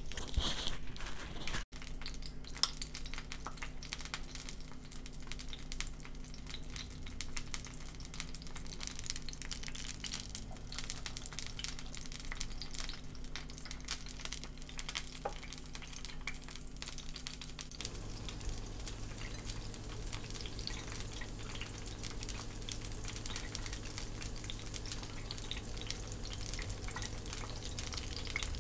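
Gram-flour battered fritters deep-frying in hot oil, a steady sizzle and crackle over a low hum.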